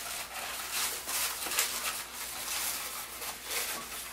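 Inflated 260 latex modelling balloon being twisted into bubbles by hand: a run of short scratchy rubbing sounds as the rubber is rubbed and wrung against itself.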